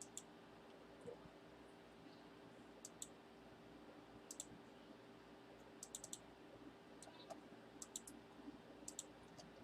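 Faint computer clicks, often in quick pairs, scattered about once a second over a faint steady hum.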